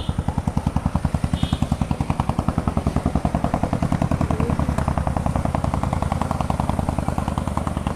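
A small engine running steadily with a rapid, even thudding, about ten beats a second.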